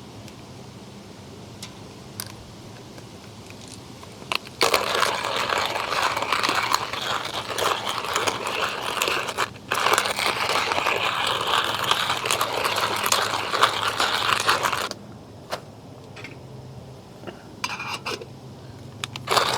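Home-roasted coffee beans crunching through a GSI hand-cranked coffee grinder. It starts about four and a half seconds in, breaks off briefly near ten seconds, and stops at about fifteen seconds, leaving a few light clicks.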